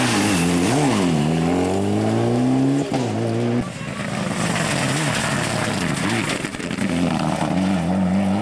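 Rally car engines at full throttle. The first car's revs dip and jump, then climb steadily through a gear. A sudden cut a few seconds in brings a second car, its revs rising and falling as it passes.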